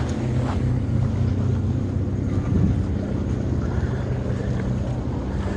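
Steady low engine drone, holding one even pitch, with wind noise on the microphone.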